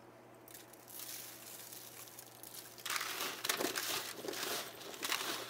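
Hands tossing oiled, seasoned cauliflower pieces on a foil-lined baking sheet, the foil crinkling and crackling. It grows louder about three seconds in.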